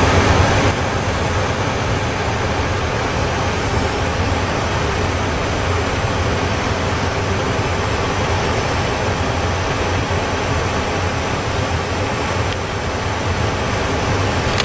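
Steady jet airliner cabin noise: the even roar of engines and rushing air heard from inside the cabin, with a low hum underneath.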